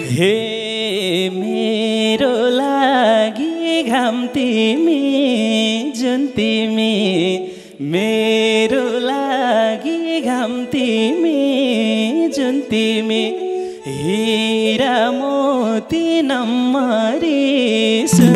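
A man singing a Nepali folk dohori song into a microphone, accompanied by a bowed sarangi. The singing comes in three phrases, with short breaks about 8 and 14 seconds in.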